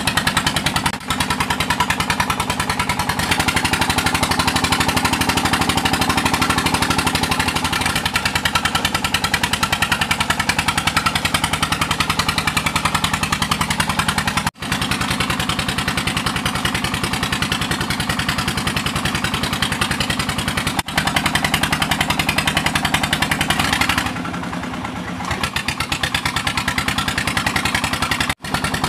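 A small engine running steadily at a constant speed, the motor of a suction pump used for small-scale sand and gold dredging. The sound is broken by a few abrupt drop-outs.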